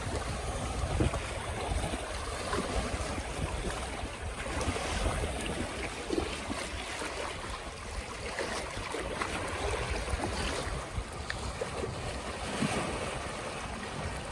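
Waves of the Öresund washing in, a steady wash of water noise with wind rumbling on the microphone.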